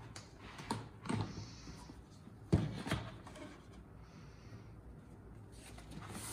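A cardboard retail box being handled and opened: a few knocks and taps on the cardboard, the loudest about two and a half seconds in, and the soft scrape of the lid flaps sliding open.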